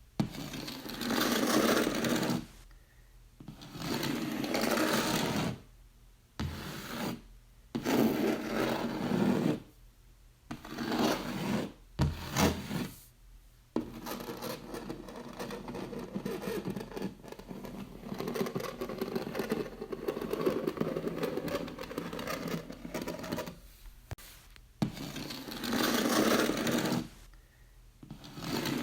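Fingernails scratching across a wall in repeated strokes of one to two seconds, with short pauses between them. In the middle there is one long unbroken stretch of scratching of about nine seconds.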